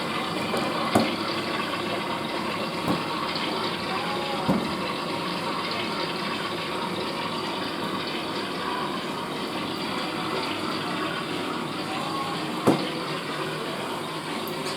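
Water running steadily in a Western-style toilet as it refills after the flush, with a few sharp clicks, the loudest near the end.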